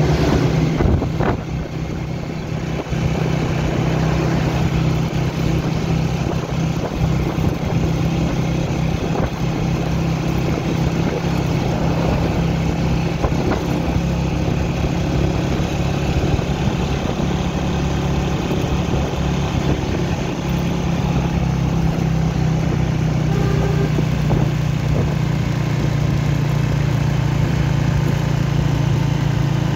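Motorcycle engine running steadily under way, heard from the rider's seat, easing off briefly about two seconds in.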